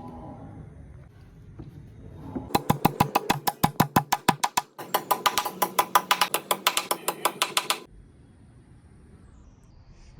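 A fast, even run of sharp knocks, about eight a second, starting about two and a half seconds in and stopping near eight seconds, with a brief break midway.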